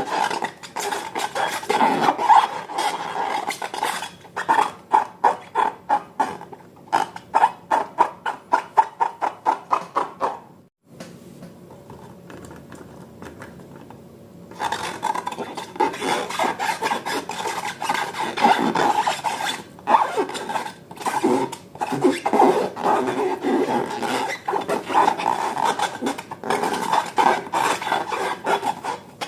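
Slime being squished and kneaded by hand, wet squelching and rubbing. A run of quick regular squelches a few a second gives way to a short quieter pause in the middle, then continuous squishing again.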